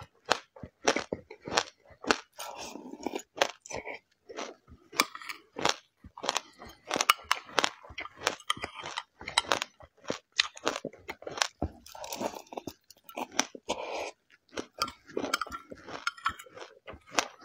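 A person chewing a mouthful of mixed seeds and grains: a quick, irregular run of crisp crunches, several a second.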